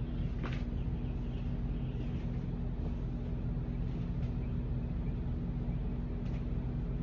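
A steady low hum throughout, with a few faint clicks or taps.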